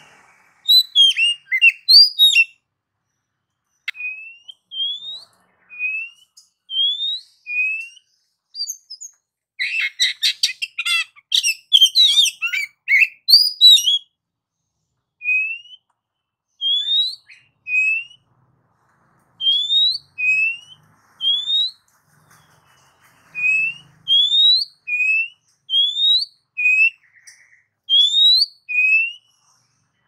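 Oriental magpie-robin singing: a run of short, clear whistled notes that each rise in pitch, repeated in phrases. About ten seconds in comes a burst of fast, dense chattering notes lasting some four seconds.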